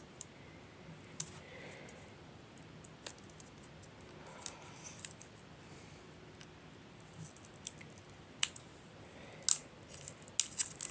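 Scattered small clicks and scratches of fingers picking at a roll of sticker paper, hunting for its loose end.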